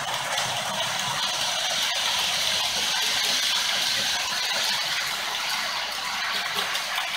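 HO-scale model freight train of Hbbillns sliding-wall wagons rolling along layout track: a steady rushing rattle of small wheels on the rails, swelling about three seconds in and easing near the end.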